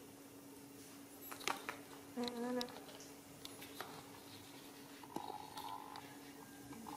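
Quiet room with a steady low hum, a few soft clicks, and one short pitched voice-like sound about two seconds in.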